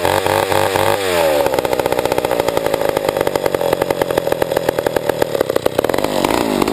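Old Pioneer chainsaw's two-stroke engine blipped up and down a few times, then running slow and unevenly for several seconds, and revving up again near the end. It is a saw whose carburettor is not yet tuned right and that will not idle properly.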